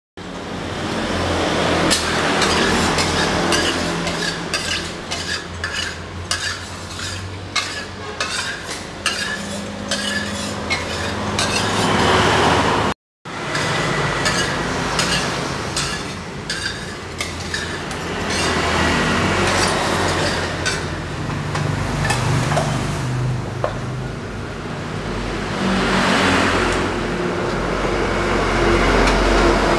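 Small knife clicking and scraping against a plastic bowl as food is cut by hand, many short sharp ticks, over a steady low hum.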